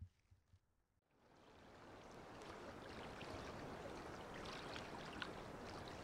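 Lake water washing and trickling along a flooded shoreline: a steady rush with small splashes and drips. It fades in out of near silence about a second in.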